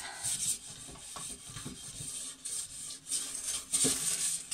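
Wire scouring pad scraping across oven door glass in irregular scrubbing strokes, working off stubborn baked-on grease spots.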